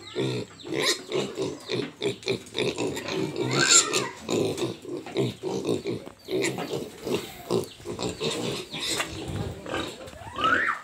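Piglets grunting in quick, overlapping bursts. A brief high squeal comes about four seconds in, and a rising squeal near the end.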